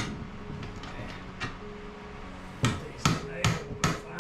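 Hammer blows: one strike at the start, then a quick run of four or five strikes, a little under three a second, in the last second and a half.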